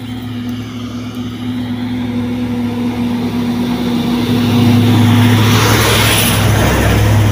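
Heavy truck driving past close by: its engine rumble and tyre noise build up steadily and are loudest about five to six seconds in.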